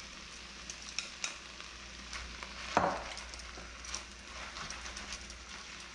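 Vegetables sizzling in an enameled cast iron pot as browned beef pieces are set back in with metal tongs. The tongs click against the pot several times, loudest about three seconds in.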